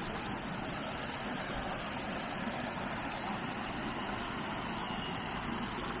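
Mountain stream water rushing over rocks: a steady, even rush.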